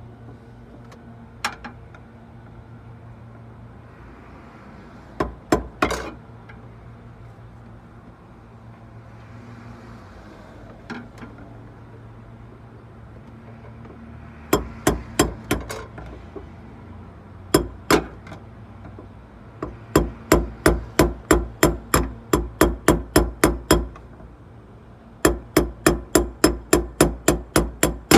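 Hammer blows: a few single strikes, then quick runs of about four blows a second, the longest lasting some four seconds. A steady low hum runs underneath.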